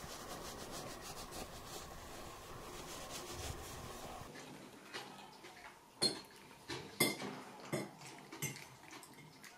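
A towel rubbing a wet cat's fur in quick repeated strokes. About four seconds in it gives way to a run of sharp clinks of dishes and cutlery, about one a second.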